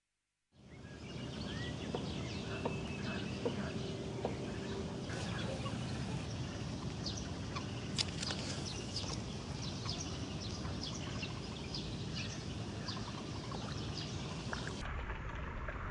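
Riverbank ambience: a steady rushing background with many short bird chirps and calls scattered through it, starting about half a second in.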